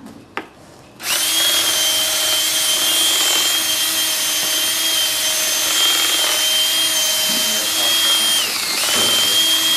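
Cordless drill driving a TailWell 2 tail-cleaning head that spins a cow's tail switch. The drill starts about a second in and runs with a steady high whine, slowing briefly near the end, then speeding back up.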